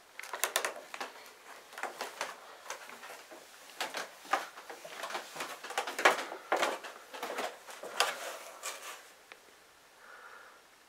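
Footsteps on steep wooden stairs: irregular knocks of feet on the treads, going down, easing off near the end.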